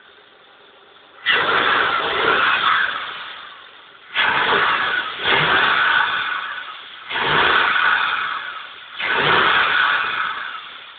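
Isuzu 6VD1 3.2 V6 engine being revved in five throttle blips. Each rises suddenly and fades away over a second or two.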